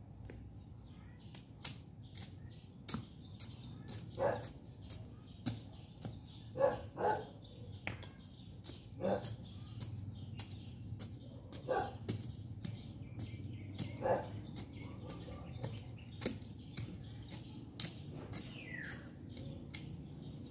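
A hand hoe chopping into stony garden soil, a dull strike every two seconds or so, with a pair of strikes close together about seven seconds in.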